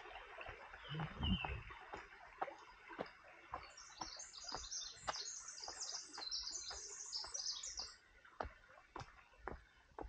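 Running footsteps on a dirt trail, short thuds about two a second, with a low bump about a second in. A small songbird sings a long, high, rapid tumbling song from about three and a half to eight seconds in.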